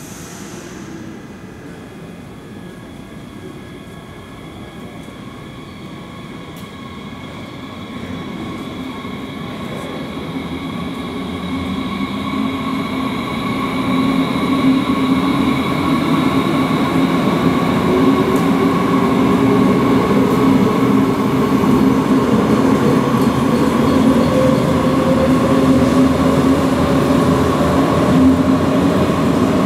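Two coupled DB Class 430 S-Bahn electric multiple units pulling into an underground station platform. The train grows steadily louder as it approaches and runs alongside, with steady electric whines and a tone rising in pitch over the second half.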